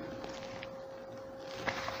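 Quiet room tone with a steady hum, and a couple of faint clicks near the end.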